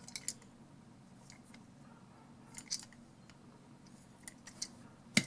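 Faint, scattered clicks and small knocks from a plastic Mega Bloks toy train engine being held and turned in the hands, with quiet between.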